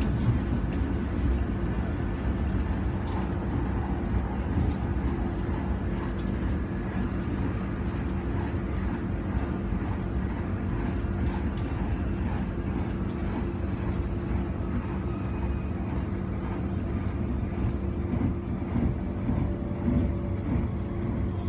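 Interior running noise of a Gautrain electric train carriage travelling at speed: a steady rumble from the wheels and rails with a steady low hum and scattered small rattles.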